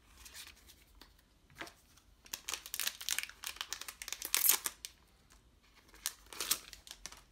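Trading-card booster pack wrapper crinkling and tearing as it is opened by hand, in bursts of crackle that are loudest about four and a half seconds in and come again near six and a half seconds.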